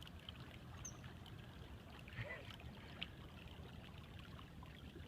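Faint steady running of open creek water, with a low rumble and a few small ticks and clicks.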